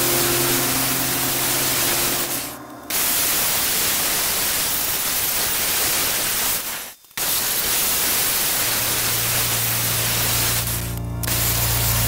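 Angle grinder with a thin cut-off wheel cutting through square steel tubing, a loud steady hiss broken by short pauses about two and a half and seven seconds in.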